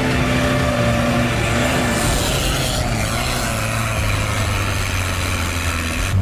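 UAZ off-roader's engine running under load as it works through a sandy rut, with a rush of noise about two to three seconds in as the tyres churn the sand.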